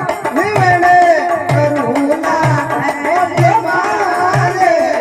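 Rajasthani folk devotional song accompaniment: a wavering melody line carries the tune over a steady hand-drum beat.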